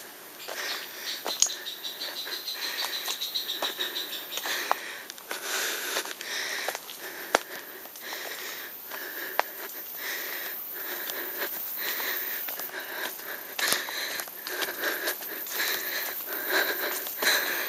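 A person breathing hard and fast while hiking briskly up and down a steep trail, with scattered sharp clicks of footsteps and twigs.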